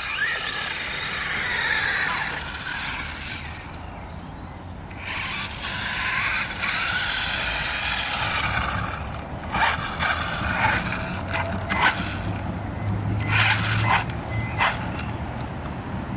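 Electric motors of two small RC cars, a brushless HSP Kidking 1/16 truck and a brushed WLtoys A959 buggy, whining as they drive, rising in pitch near the start, with tyre noise on wet, gritty tarmac. Sharp clicks and scrapes come in the second half.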